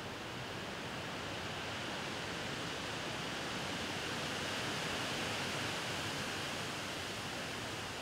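Wind moving through a leafy tree canopy, a steady rustling hiss of leaves that swells gently about halfway through and then eases.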